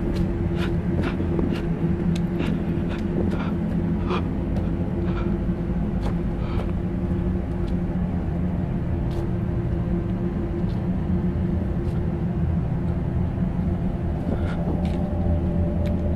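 A steady low rumbling drone with several held low tones. Sharp clicks and crackles come every half second or so over the first half and again near the end.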